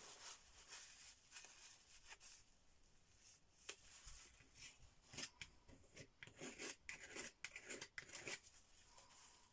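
Metal palette knife scraping across thick acrylic paint in a run of short, faint, scratchy strokes, busiest in the second half, along with the rustle of a paper towel as the knife is wiped.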